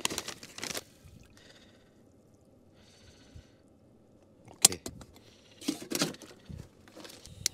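Camp-kitchen handling sounds. A plastic food pouch rustles in the first second. After a quieter stretch, metal pots and cups knock and clink several times as they are set down and moved around.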